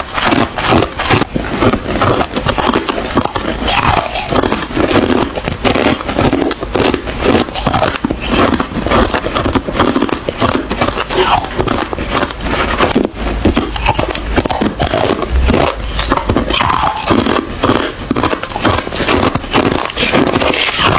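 Ice being bitten and chewed close to the microphone: a dense, unbroken run of crunches.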